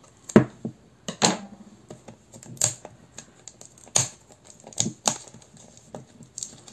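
Irregular sharp clicks and taps from hands handling a wrapped tarot deck, about a dozen spread unevenly.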